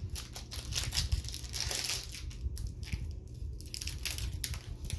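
Foil Yu-Gi-Oh! booster pack wrapper crinkling and being torn open: a dense run of crackles and rips, thickest in the first two seconds.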